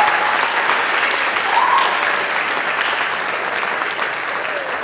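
Audience and cast applauding, a dense clatter of many hands clapping that slowly dies down, with a voice briefly heard above it.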